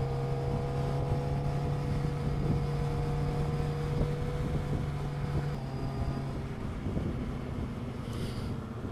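Sportbike engine running at a steady cruising speed with wind rushing over the microphone. The engine note holds steady, then its lowest tone drops away about six seconds in.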